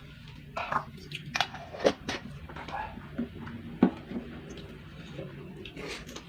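A person chewing a mouthful of fried instant noodles and stir-fried water spinach with rice: wet chewing and lip smacks, with a few sharper clicks.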